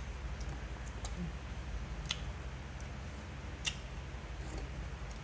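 Room tone with a steady low hum and a few faint, sharp clicks scattered irregularly, the clearest about two seconds in and again near the four-second mark.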